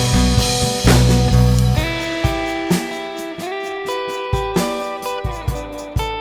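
Background music led by guitar: plucked, ringing notes, with deep bass notes in the first couple of seconds.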